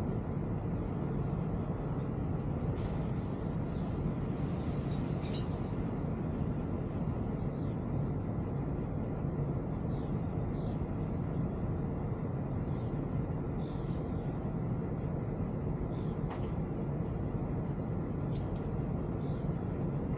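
Heavy diesel engine idling steadily, a low even rumble, with a few faint short ticks over it.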